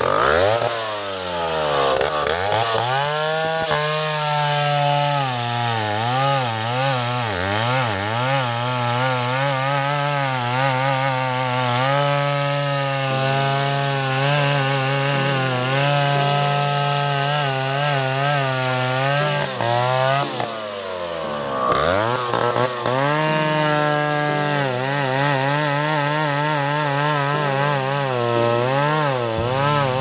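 Chainsaw cutting through a durian log, its engine at high revs with the pitch wavering as the chain loads and frees in the wood. Twice it drops toward idle, just after the start and about two-thirds of the way through, then revs back up into the cut.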